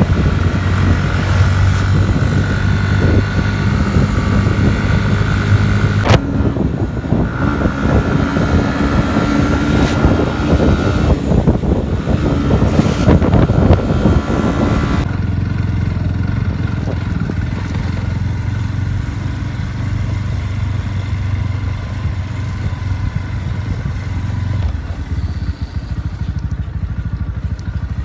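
Motorcycle engine running as the bike is ridden: a steady low hum under a hiss that drops away about halfway through.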